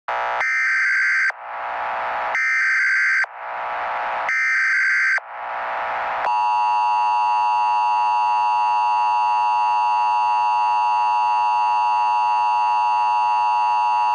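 Emergency alert broadcast opening: three short bursts of data tones, then from about six seconds in a long, steady alert tone that cuts off suddenly.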